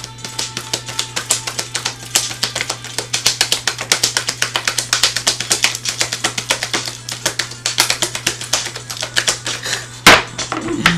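A large tarot deck shuffled by hand: a fast, steady run of card clicks, about eight a second, with a sharp knock near the end. Background music plays underneath.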